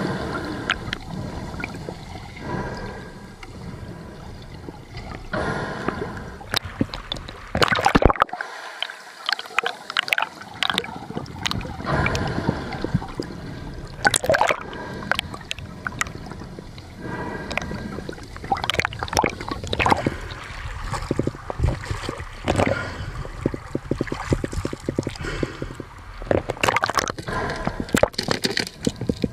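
Seawater sloshing and gurgling, broken by irregular splashes and knocks.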